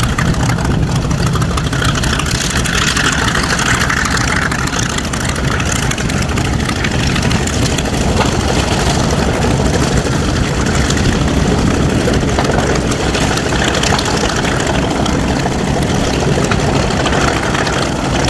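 A large engine running steadily and loudly, with a low hum under a broad rushing noise.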